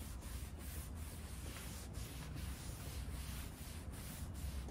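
Rag wiping wood stain conditioner across a bare wooden tabletop. The strokes go back and forth, a faint rubbing hiss that breaks briefly at each turn of the stroke.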